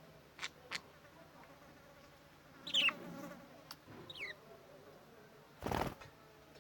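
Caged budgerigars: two short chirps that fall in pitch, a couple of light clicks, and a brief rustle near the end.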